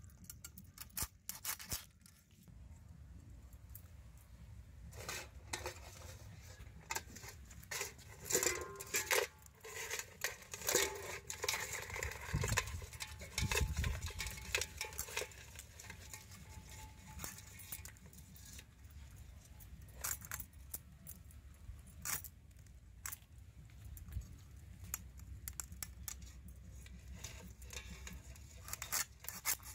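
Small crabs being broken apart and cut on a bonti, a fixed curved kitchen blade: irregular cracks, crunches and clicks of shell and legs snapping, thickest through the middle stretch.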